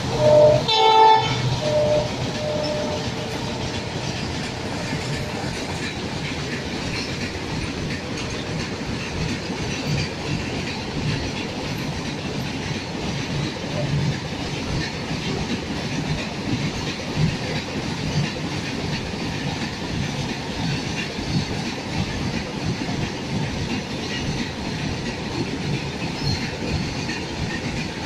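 A train horn sounds for about the first second and a half, then a goods train of open steel wagons rolls steadily past, its wheels clattering.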